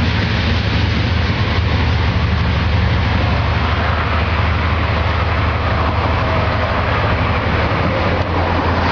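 Freight train's container wagons rolling past on the rails: a loud, steady rumble of wheels on track.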